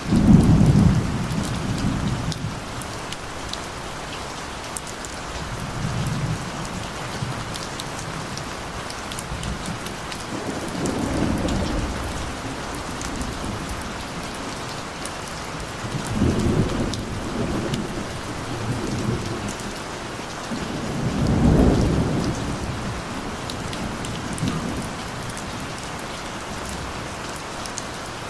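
Steady rain falling, with many fine drop patters, and low rolls of distant thunder that swell and fade several times, loudest at the start and about 21 seconds in.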